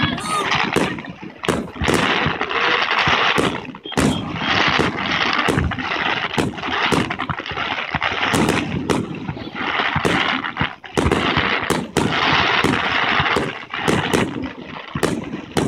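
Aerial fireworks shells bursting in a rapid, irregular run of sharp bangs, about two a second.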